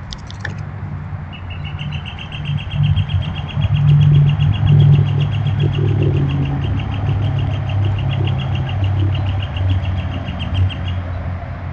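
A low, steady engine rumble, louder a few seconds in, with a bird's long, rapid trill of repeated high notes over it that starts just over a second in and stops shortly before the end.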